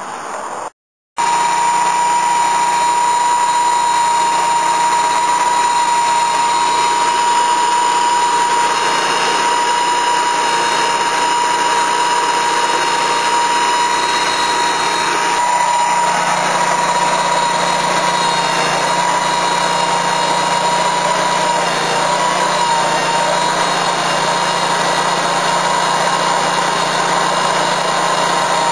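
Lucas Mill portable sawmill running at full speed and sawing a slab from a madrone burl: a loud, steady engine-and-saw noise with a high steady whine. It cuts out briefly about a second in, and the sound grows fuller about halfway through.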